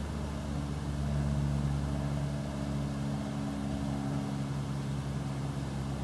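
Steady low mechanical hum of a motor or engine running, several constant low tones with a faint higher whine drifting in and out in the middle.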